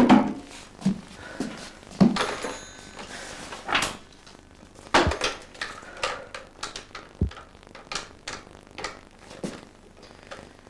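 A series of irregular knocks and thumps, the loudest at the very start and about two, four, five and seven seconds in.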